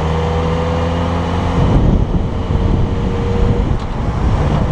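Motorcycle engine running at a steady cruise, heard through a helmet camera's microphone with wind buffeting it; about two seconds in, a rough low wind rumble covers the engine's steady tone for a couple of seconds.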